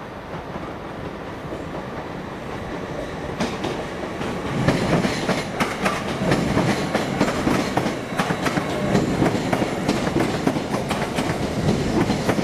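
Train moving along the station tracks, its wheels clicking over rail joints and points, the rumble and clicking building and getting louder about four seconds in.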